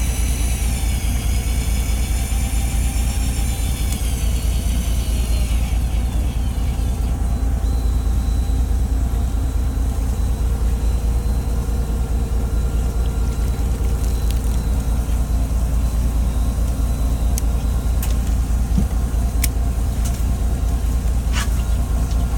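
Fishing boat's engine running steadily with a deep, even rumble. For about the first six seconds a high, wavering whine rides over it, and a few sharp clicks come near the end.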